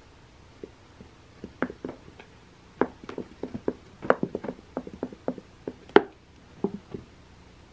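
A cat pawing and batting at a toy tucked under an artificial-grass cat scratcher. The paws and claws make an irregular run of quick taps and scratches, thickest in the middle and loudest about six seconds in.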